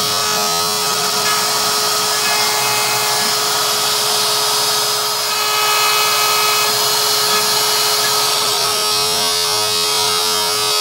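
Shapeoko 3 CNC router's spindle running at a steady, high whine while its bit carves lettering into a wooden sign.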